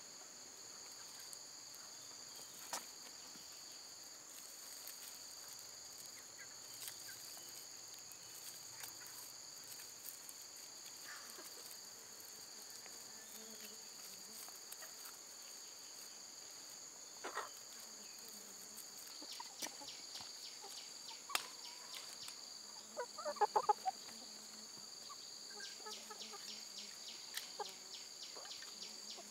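Steady high-pitched drone of insects with scattered sharp clicks and snaps from knives cutting jicama roots and handling the tubers, more frequent in the second half. A chicken clucks briefly about three-quarters of the way through.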